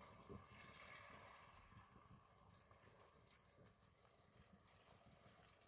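Near silence: faint background hiss with a few soft, low knocks.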